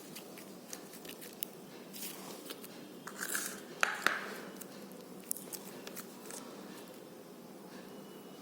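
Slime being handled, with scattered small clicks and pops and a louder cluster of squelching crackles about three to four seconds in.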